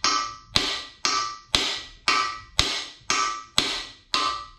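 Hammer blows on a steel bearing driver, about nine steady strikes at roughly two a second, each with a short metallic ring. They drive a balance shaft bearing into the bore of a Mitsubishi 4G63 cast-iron engine block, and the bearing is nearly seated.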